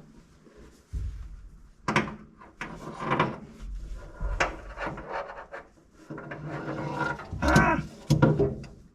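Irregular clicks, clatters and rubbing of hand work on seatbelt hardware as new belts are fitted in a truck cab, with a few sharper knocks about a second in, near two seconds and towards the end.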